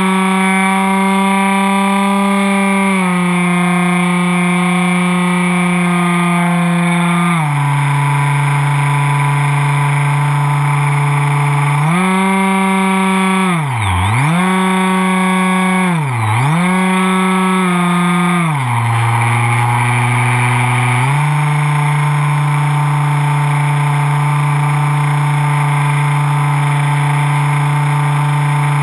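Electric motor and propeller of a foam RC plane, heard from a camera on the airframe: a loud, steady buzzing whine whose pitch steps down with throttle changes. About halfway through it dips sharply and recovers twice in quick succession, then drops lower for a couple of seconds and comes back up.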